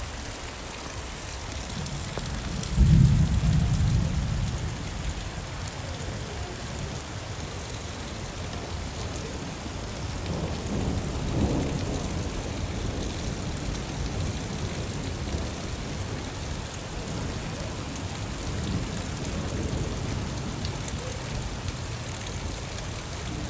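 Steady rain falling, with a loud clap of thunder about three seconds in that rumbles away over a couple of seconds, and a softer roll of thunder around the middle.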